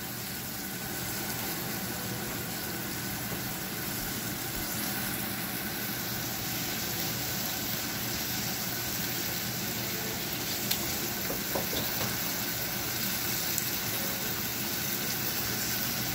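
Flour-dusted shrimp sizzling steadily in butter and oil in a frying pan over high heat, with a few faint pops about two-thirds of the way through.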